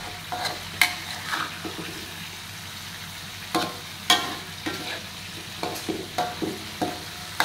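Metal spatula scraping and knocking against a wok in irregular strokes while stir-frying fish in chilli sambal, over a steady frying sizzle.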